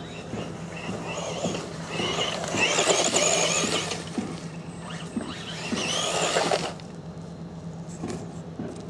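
Tamiya Frog RC buggy with a 19-turn Etronix electric motor, its motor and gears whining as it is driven off camera. The whine wavers in pitch and swells twice, and the second swell cuts off suddenly as the throttle is let go.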